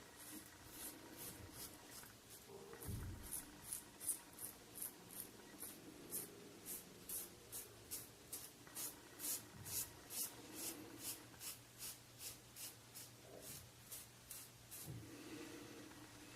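Rockwell 6c safety razor with a SuperMax Blue Diamond blade scraping through a week of stubble on a scalp slicked with hair conditioner: a long run of short, quick scratchy strokes, about two to three a second, fairly faint.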